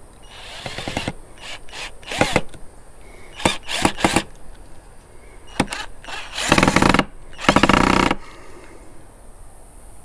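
Cordless drill driving screws into pallet-wood boards, in a series of short runs, with two longer, louder runs about two-thirds of the way through.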